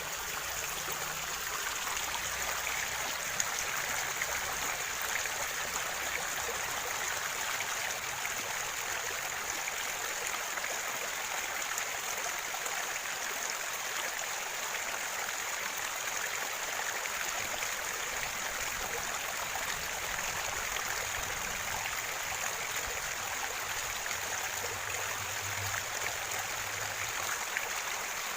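Water of a small river flowing steadily, a continuous rushing hiss without breaks.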